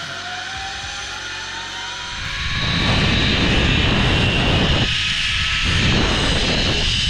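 Zip-line trolley pulleys whining along a steel cable, with a thin whine that rises in pitch as the trolley picks up speed. About two and a half seconds in, loud wind rushing over the helmet camera joins it as the rider glides down the line, with a steady high whine from the pulleys underneath.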